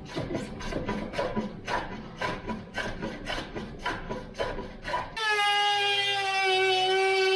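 Hand abrading of wood: repeated back-and-forth rubbing strokes, about two a second. About five seconds in, it cuts off abruptly to music with sustained plucked-string notes.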